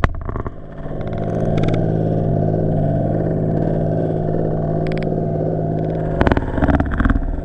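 Power ice auger running steadily as it drills through the ice, heard from under the water as a low motor hum, with a few sharp knocks near the end.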